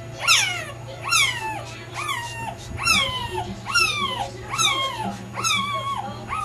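Newborn boxer puppy crying: eight high-pitched squeals in a row, each falling in pitch, about one a second.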